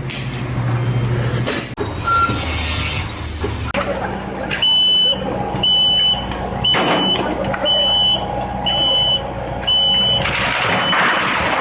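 Vehicle reversing alarm beeping about once a second in short, high, single-pitched beeps, over a steady engine hum. It starts about four and a half seconds in, after a stretch of other noise.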